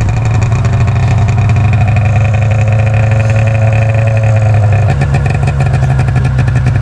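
Snowmobile engine running close by, a loud steady drone. Its note shifts slightly about five seconds in.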